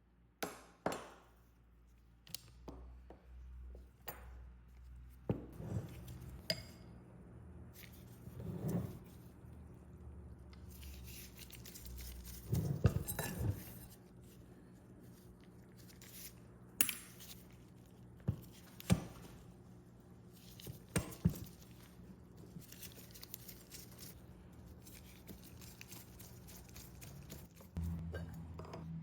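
Small metal parts and tools clinking and knocking as they are handled and set down on a workbench, a few strikes ringing briefly, over a steady low hum.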